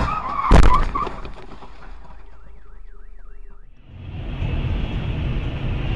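Car collision with a loud crash about half a second in, followed by a car alarm warbling up and down rapidly, about four times a second. It cuts off near four seconds into steady road and rain noise from a car driving in the rain.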